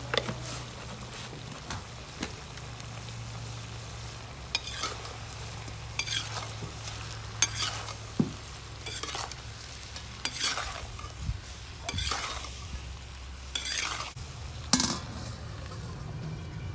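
Metal spatula stirring and scraping salted chicken pieces around a wok, the meat sizzling; the scraping strokes come about every second or so.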